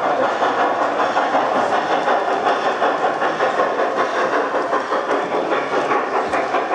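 G scale model trains rolling along the track, their wheels clicking over the rail joints in a quick, steady rhythm.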